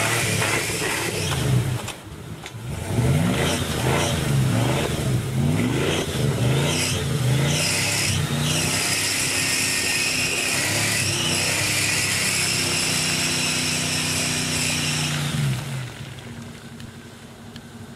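A lifted first-generation Dodge Ram pickup's engine revving up and down several times as it churns through mud. It is then held at high revs for several seconds with a loud hiss of tyres spinning in the mud, and eases off near the end.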